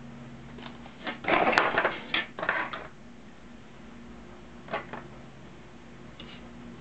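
Hard plastic model car parts clattering and clicking on a wooden table as they are handled and set down: a burst of quick clicks and knocks lasting about two seconds, then a single click a couple of seconds later.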